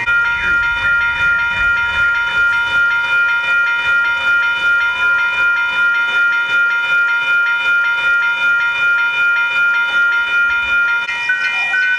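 Railroad crossing warning bell ringing: a set of bright metallic tones struck over and over in a fast, even repeat.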